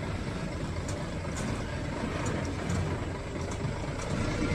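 Heavy container truck's diesel engine running with a steady low drone as the truck drives slowly past.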